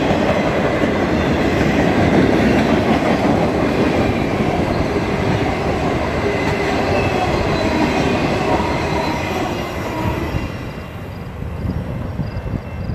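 Loaded flatcars of a freight train rolling past close by: a steady rumble and clatter of steel wheels on the rails. The noise fades about ten seconds in as the last car passes and moves away.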